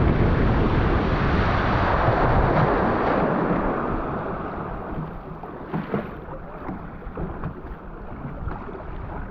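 Rushing spray and wind on a Yamaha WaveRunner at speed, fading away over about five seconds as the riderless machine slows to a drift after its rider has been thrown off, leaving light slaps of water.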